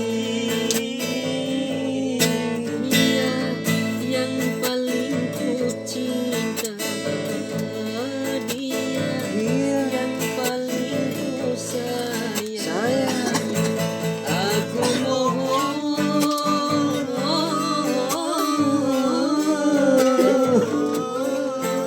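Instrumental break in a song: guitar carrying a sliding melody over a steady backing.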